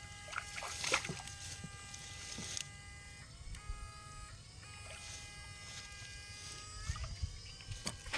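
A motor running with a steady whine whose pitch dips and rises a few times, with a few sharp clicks.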